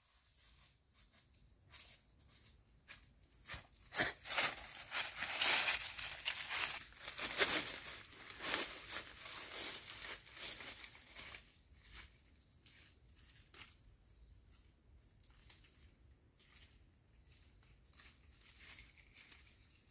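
Footsteps crunching through dry leaf litter and rustling past undergrowth, with many small crackles; louder for several seconds in the middle, then softer.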